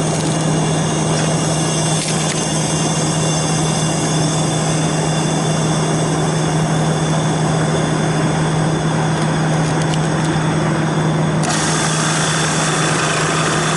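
Refrigerant recovery machine running steadily, its motor-driven compressor giving a constant low hum under a wide hiss while it pulls refrigerant out of the system. About eleven seconds in, the hiss in the upper range suddenly gets louder.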